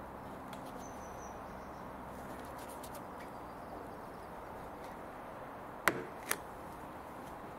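Two sharp plastic clicks, about half a second apart, near the end: the clips of a Mercedes CLK W208's door tweeter trim snapping loose as the piece is pulled out of the mirror corner. Under them is a steady faint background hiss.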